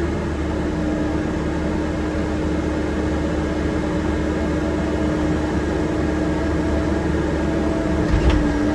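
Excavator engine running steadily at a constant hum while the machine lifts a heavy boulder, with a low thump about 8 seconds in.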